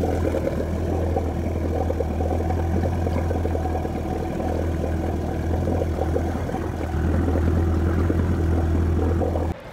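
Boat engine running at a steady speed while it tows a motorless pontoon shanty boat, a constant low drone. It cuts off abruptly shortly before the end.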